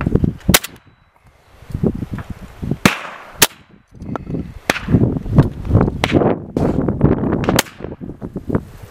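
Shotgun shots, about six or seven sharp reports at uneven spacing over several seconds, with a rumbling low background between them.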